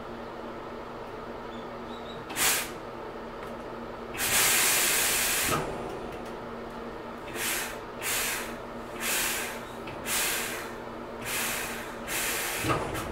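Hankyu 6300 series electric train standing with a steady electrical hum, while its compressed-air system lets out hisses: one short, one long about four seconds in, then a run of short puffs about once a second.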